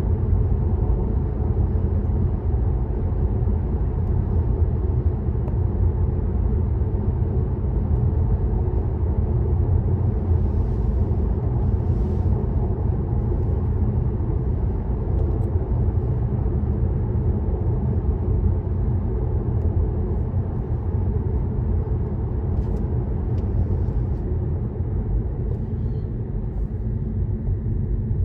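Steady low road rumble of a car cruising at motorway speed: even tyre and engine noise with no change in pace.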